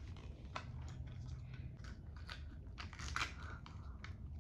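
Faint, scattered crinkles and small clicks of a Mini Brands plastic capsule and its small paper wrapper being handled and opened by hand.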